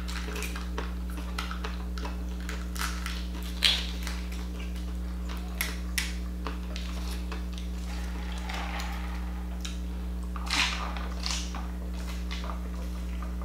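Close-miked eating of fast food: scattered crunches, chewing and mouth clicks over a steady low electrical hum. Near the end come two louder noisy sounds as a drink is sipped from a cup.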